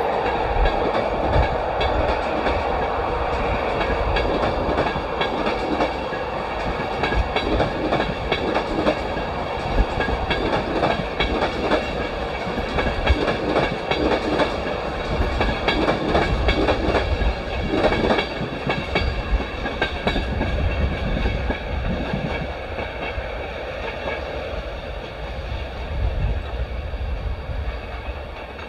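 LNER InterCity 225 electric express train running past at speed, its wheels clattering rapidly over rail joints and pointwork, with one louder knock part way through. The sound fades over the last few seconds as the end of the train draws away.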